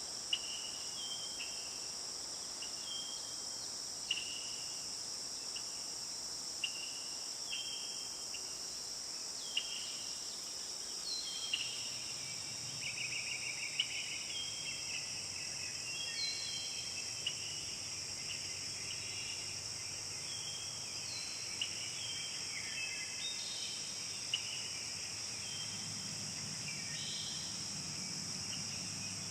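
Forest ambience: a steady, high-pitched insect chorus with birds calling in short chirps and brief falling notes over it, and a few sharp ticks.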